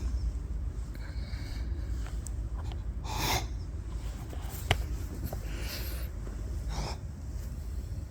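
Short, forceful snorting bursts of breath through the nose, the 'nose cough': one about three seconds in, then two more shortly after six and near seven seconds, over a steady low rumble.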